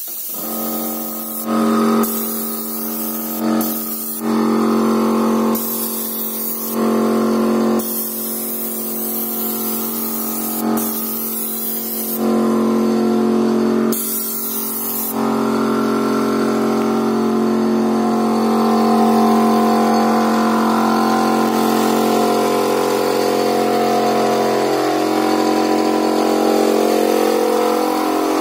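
Airbrush compressor motor starting and running steadily, with short bursts of spray hiss from the airbrush as its trigger is pressed and released, five times in the first half.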